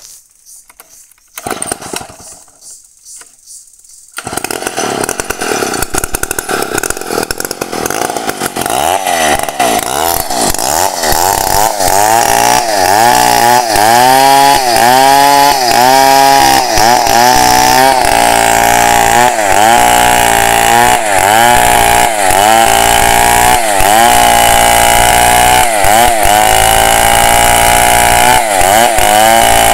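Petrol chainsaw ripping lengthwise through a log to cut planks. It comes in loud about four seconds in and runs hard, its engine pitch dipping and recovering over and over as the chain bites into the wood.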